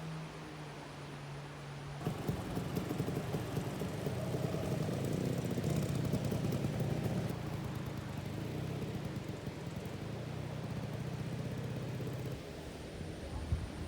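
Vespa scooter engine running steadily, getting louder about two seconds in and easing back near the end.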